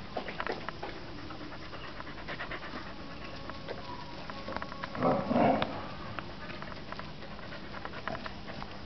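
A dog panting close by, with light scattered taps of paws and footsteps on pavement. About five seconds in there is a louder half-second vocal sound.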